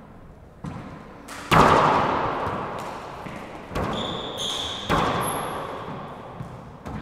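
A rubber handball bounced twice on the hardwood floor, then struck hard by hand on the serve about a second and a half in, the smack ringing and dying away slowly in the enclosed court. Several more sharp ball hits off the walls and floor follow, with a high squeak around the middle.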